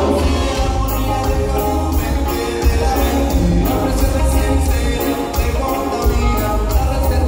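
Reggae band playing live: bass, drums, electric guitar and keyboards, with singing over the top and a steady beat ticking in the cymbals.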